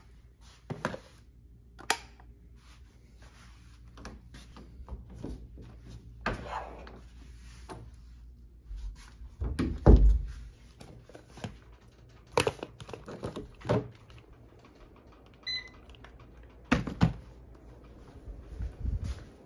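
Handling noise of a cardboard parcel being carried and moved about: scattered knocks and thumps, the loudest a deep thump about ten seconds in.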